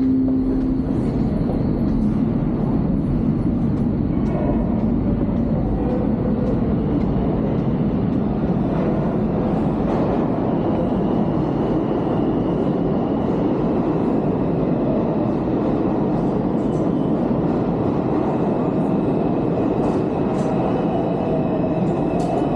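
New York City subway trains rumbling in an underground station, a steady loud din that runs without a break.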